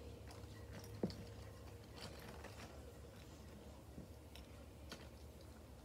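Quiet room with a steady low hum and a few faint, sharp clicks, the clearest about a second in.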